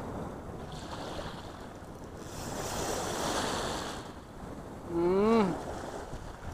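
Small waves washing up onto a sandy beach, one wave surging in and draining back between about two and four seconds in. A short wordless voice sound, rising then falling in pitch, comes about five seconds in.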